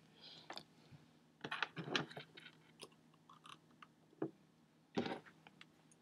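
Faint rustling and small clicks of wires, alligator clips and a cable being handled while a circuit is connected, louder around 2 seconds and again about 5 seconds in.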